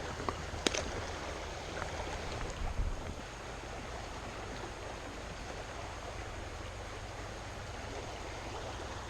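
Steady rush of flowing floodwater running through flooded woods, with a few faint clicks and small knocks in the first three seconds.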